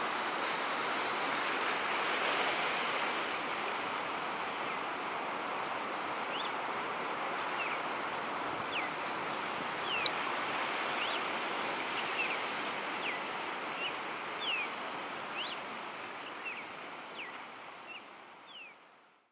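Ocean surf breaking and washing: a steady rushing noise, with short high chirps over it from about six seconds in, fading out near the end.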